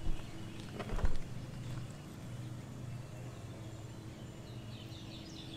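Quiet outdoor ambience: a steady low hum with faint birdsong chirping near the end, and a couple of soft knocks within the first second and a half as bacon is laid into a skillet on a camp stove.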